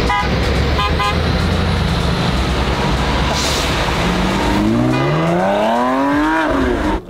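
Road traffic: a steady low rumble with a couple of short horn toots near the start. A vehicle engine then revs up, its pitch rising over about two seconds before dropping, and the sound cuts off suddenly at the end.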